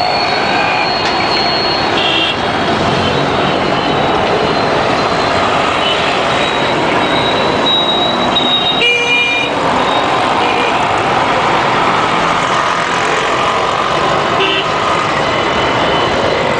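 Dense city traffic of auto-rickshaws, scooters, motorcycles and cars, engines running and tyres on the road, with short horn toots sounding again and again. One horn blast about nine seconds in stands out.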